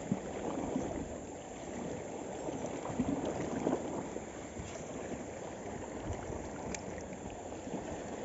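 Sea water washing against shoreline rocks with wind buffeting the microphone: a steady, rough rush with no clear rhythm.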